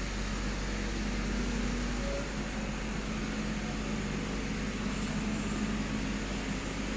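A heavy machine's diesel engine running steadily: a constant low hum without changes in speed.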